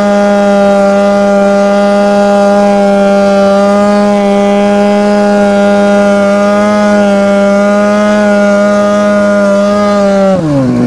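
Ski-Doo MXZ 700 snowmobile's two-stroke engine held at steady high revs, a loud, even drone through its extremely loud exhaust. Near the end the revs fall away sharply as the throttle is let off.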